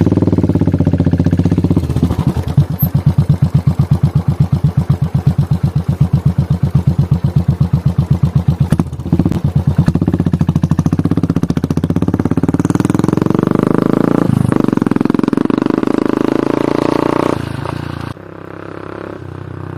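Royal Enfield Continental GT 535's single-cylinder engine running with a loud, distinct exhaust thump. About halfway through it is revved and the sound rises and fills out, then the level drops sharply near the end.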